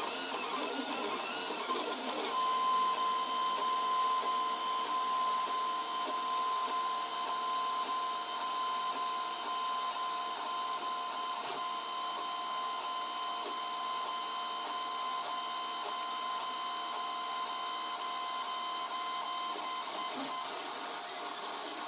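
A 3D printer with a belt-drive Bowden extruder running a print, its stepper motors whirring through the moves. About two seconds in, a steady whine sets in and holds.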